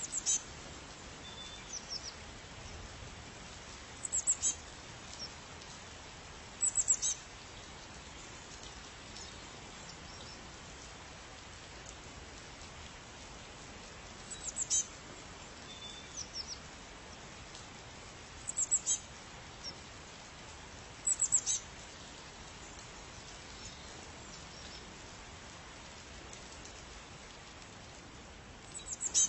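A small bird calling in short, very high chirps, two to four quick falling notes at a time, repeated every few seconds over a steady hiss like rain or running water.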